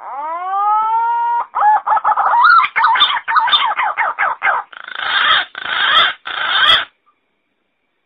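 Green pigeon calling: a long rising whistle held for about a second and a half, then a fast run of wavering, warbling whistles, and three harsh, grating notes near the end.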